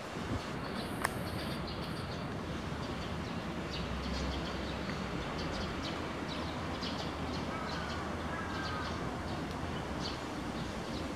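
Small birds chirping in short, scattered calls over a steady low rumble of distant city noise, with a single sharp click about a second in.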